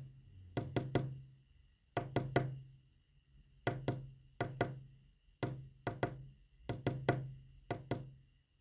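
Sharp knocks tapped out as Morse code, in quick groups of about three with short pauses between the groups.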